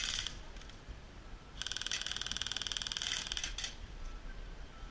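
Electric airsoft rifle firing on full auto, a rapid even rattle of shots. A burst ends just after the start, and a second burst of about two seconds begins near the middle.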